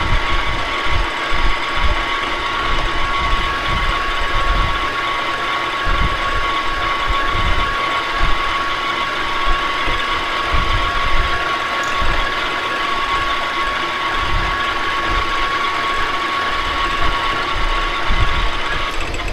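Metal lathe running under power as a Stressproof steel plug is turned down, with a steady high gear whine over an uneven low rumble. It shuts off right at the end.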